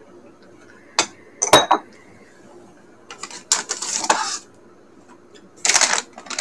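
Two sharp clinks about a second in, then crinkling of a plastic snack bag as it is pulled from a cardboard box and handled, with a second short burst of crinkling near the end.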